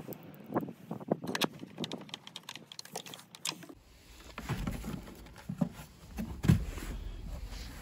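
Hard plastic mobility-scooter parts and a screwdriver being handled: a quick run of small clicks and light knocks, then, partway through, a few duller thumps as the plastic cover is lifted and turned, over a low rumble.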